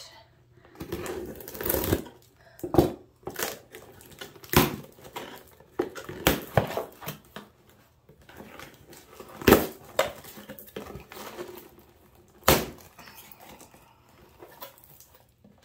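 Packing tape slit and a cardboard shipping box opened by hand: irregular crackling and rustling of tape, cardboard flaps and paper, with a few sharp snaps. The loudest snap comes a little past halfway.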